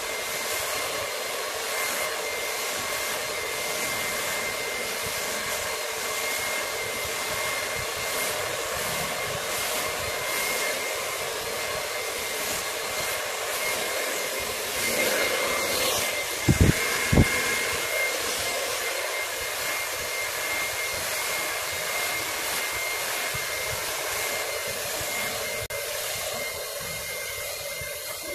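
Handheld hair dryer blowing steadily, a rushing hiss with a thin steady high whine, while it dries wet hair. About sixteen seconds in come two sharp thumps about half a second apart.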